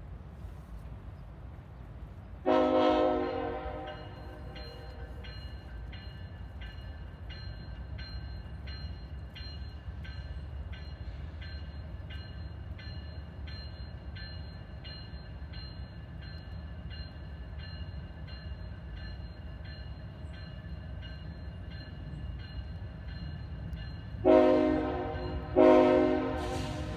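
Approaching CSX diesel locomotive sounding its horn: one blast about two and a half seconds in, then two more close together near the end. Between the blasts a bell rings steadily over the low rumble of the train.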